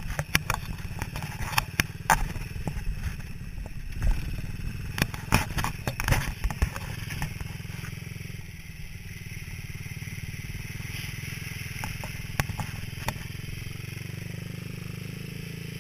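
Small off-road buggy's engine running with a steady low hum, with frequent clicks and rattles of the frame and camera mount over rough ground. From about eight seconds in the rattling mostly stops and the engine runs steadier and quieter.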